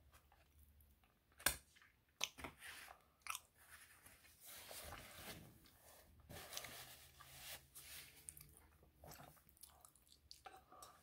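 Close-up chewing and mouth sounds of someone eating an English muffin with peanut butter and honey, with a few sharp clicks in the first few seconds. A paper napkin rustles against the mouth midway through.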